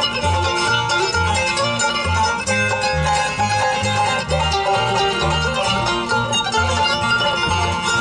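Bluegrass band playing an instrumental break between sung verses: banjo, mandolin and acoustic guitar picking over a bass walking steady notes about twice a second.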